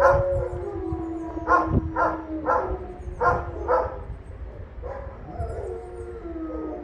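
A dog barking in short runs of two or three barks, over the steady test tones of distant electronic sirens. Some of the siren tones fall in pitch near the end.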